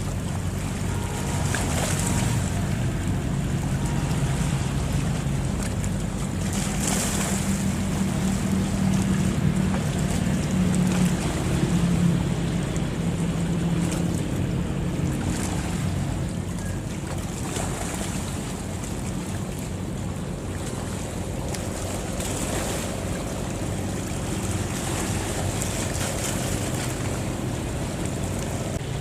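Fishing boat's engine running with a steady low hum, under the wash of sea water and wind buffeting the microphone.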